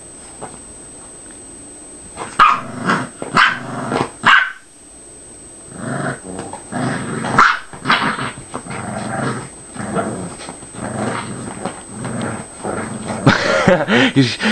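Two dogs play-fighting, growling and giving short barks. Quieter for the first couple of seconds, then a few sharp barks, a brief lull, and almost unbroken growling from about six seconds in.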